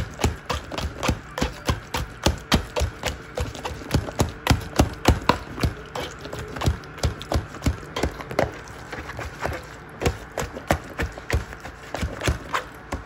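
A plastic cup knocking and pressing soursop pulp against a stainless-steel mesh strainer set in a plastic tub, about three knocks a second. The knocks stop shortly before the end.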